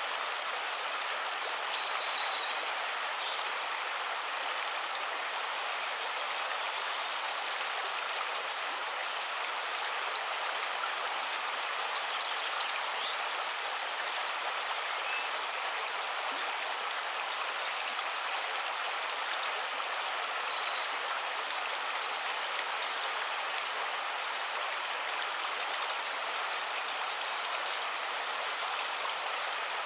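River water flowing steadily, with a songbird singing short, high, rapid phrases near the start, about two-thirds of the way through, and again near the end.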